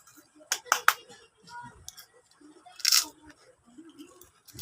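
Crunchy snack being bitten and chewed close to the microphone: a few sharp crunches under a second in and a louder crackle about three seconds in, with faint low hums of voice between.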